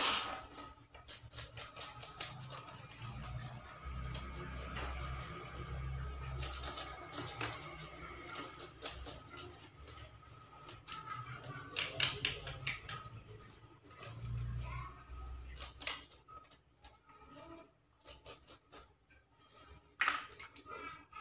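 Scissors snipping through small raw fish as they are cleaned, an irregular run of sharp clicks and crunches with some handling noise.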